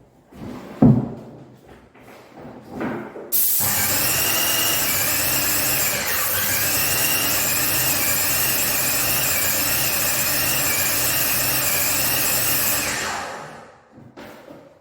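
Corded power tool with a spinning cutter, switched on abruptly and run for about nine seconds at a steady high whine. The whine dips briefly in pitch a few seconds in, and the tool spins down near the end. A few knocks come before it.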